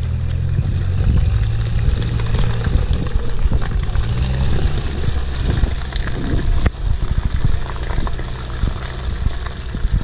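Mitsubishi L200 pickup's engine revving as it pulls through deep mud ruts and drives away, the steady engine note breaking up into rougher, uneven noise after about five seconds. A single sharp click about seven seconds in.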